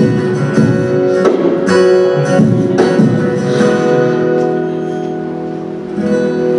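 Acoustic guitar strumming chords: several strums, then a chord left to ring and fade for a few seconds before another strum near the end.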